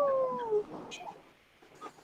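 A long held, slightly wavering howl-like voice that slides down in pitch and fades out about half a second in.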